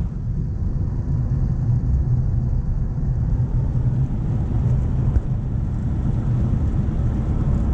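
Nissan Navara D40 pickup driving up a hill road, heard from inside the cab: a steady low engine and road drone. A single brief knock comes about five seconds in.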